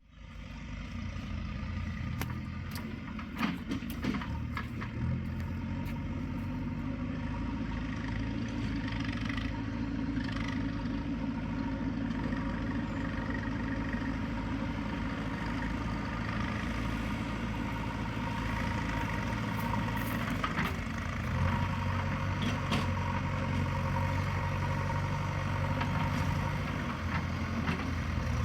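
Heavy diesel engine running steadily, its note shifting about five seconds in and again around twenty seconds in, with a few sharp metallic clanks in the first few seconds and near twenty seconds.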